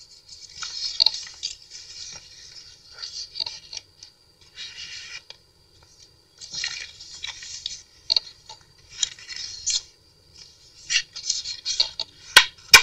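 Paper rustling and scraping as the pages, pockets and tags of a handmade junk journal are handled and turned, in short irregular bursts, with a couple of sharp clicks near the end.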